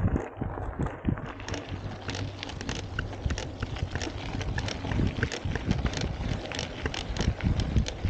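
Mountain bike ridden fast along a dry dirt track: tyres rolling over loose dirt and gravel, with frequent irregular clicks and rattles from the bike, over low wind rumble on the camera microphone.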